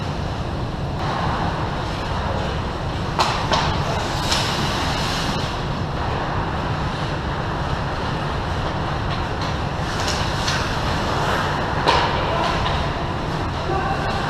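Ice hockey play in an indoor rink: a steady low rumble, with sharp scrapes and clacks of skate blades and sticks on the ice, a cluster of them about three to four seconds in and more around ten to twelve seconds in.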